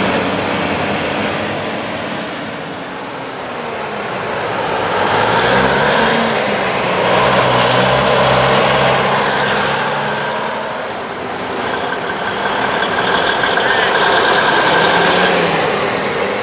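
Vintage trucks driving past one after another, their engines running. The sound swells as each one goes by, loudest around the middle and again near the end.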